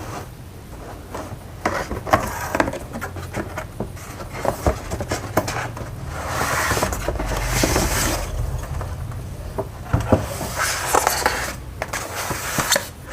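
Toy car's box being opened and its packaging handled: scraping and rustling with many small clicks and knocks, and longer stretches of rustling about halfway and near the end.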